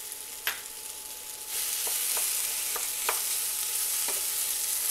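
Sliced onion frying with diced potatoes in hot oil in a frying pan. The sizzle grows much louder about a second and a half in as the onion is stirred into the oil, and a wooden spoon knocks lightly against the pan several times.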